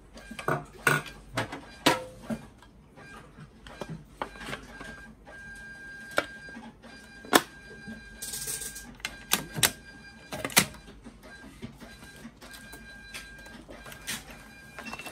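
Plastic and metal parts of a Zebra ZT410 label printer clicking and knocking as they are handled and fitted back together: a scatter of sharp clicks, with a short rustle about eight seconds in. A faint steady high whine comes and goes behind them.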